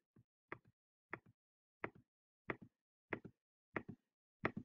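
Computer mouse clicking faintly at an even pace, about seven times, each a sharp click followed closely by a softer one, as a page is scrolled on screen.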